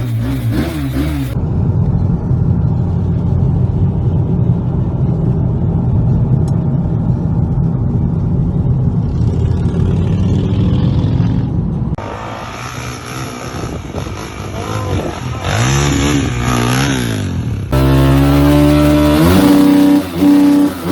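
Motorcycle engines running and revving in a string of short edited clips, with abrupt changes of sound about a second in, about twelve seconds in and near eighteen seconds in; in the middle clip the engine pitch rises and falls.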